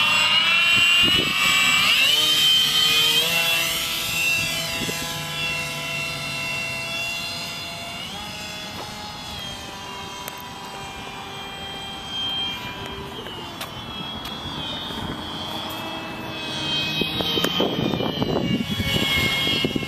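Electric motor and propeller of an RC flying wing whining: the pitch climbs about two seconds in as the throttle goes up, then holds steady and fades as the plane flies off, growing louder again near the end as it comes back past.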